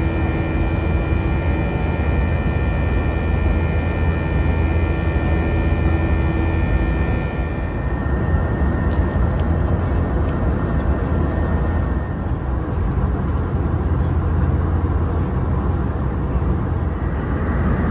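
Steady in-flight cabin noise of an Airbus A321 airliner: a constant drone of jet engines and airflow with a strong low hum. A few faint high tones fade out about eight seconds in.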